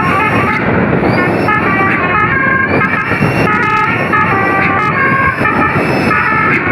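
Basuri telolet multi-horn on a tour bus playing a quick melody of stepped horn notes, changing pitch several times a second, over steady engine and road noise.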